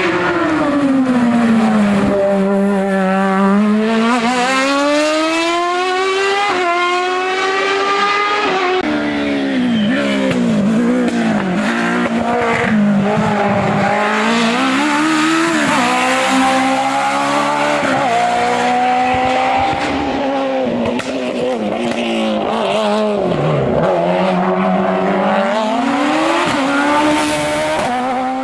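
Hillclimb race car engine revving hard through the gears, its pitch climbing steeply and then dropping sharply at each shift and each slowdown for a bend, again and again.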